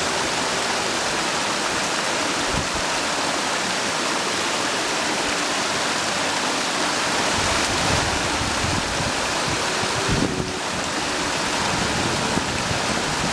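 Small waterfall on a mountain creek, water rushing steadily over rock into a pool.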